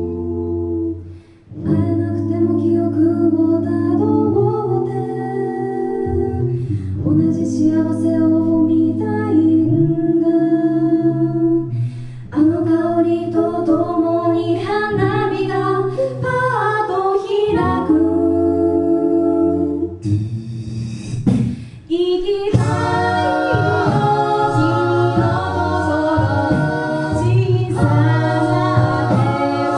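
Six-voice a cappella group singing into microphones: held chords with a moving melody on top, no instruments. The singing breaks off briefly about a second in and again around twenty-one seconds before the chords come back in.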